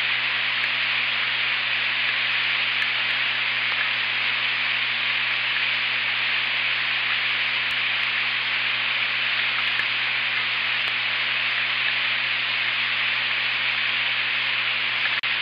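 Rain falling on an osprey nest, heard through the nest camera's outdoor microphone as a loud, even hiss, with a low steady hum underneath.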